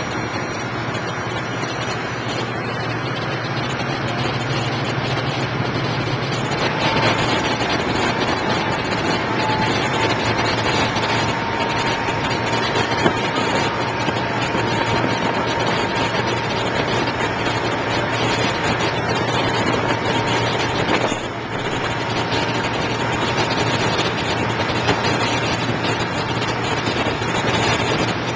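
A boat's engine running steadily under way, a constant low hum with rushing noise over it; a thin high whine joins about seven seconds in and holds.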